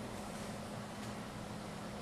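Steady hiss with a faint low hum underneath and no distinct events: room tone.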